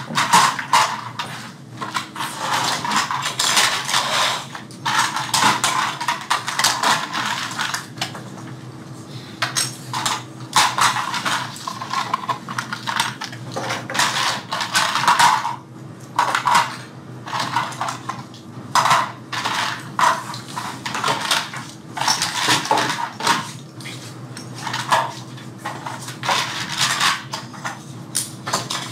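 Small hard toy-airplane parts clattering and clicking irregularly as they are handled, put down and fitted together at several workstations, over a faint steady hum.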